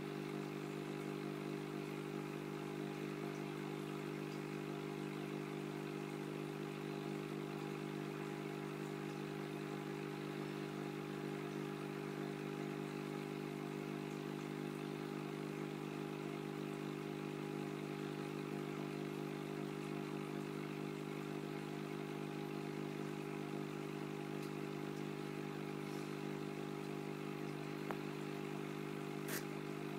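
Aquarium pump running with a steady electric hum of several even tones over a faint hiss; a single sharp click near the end.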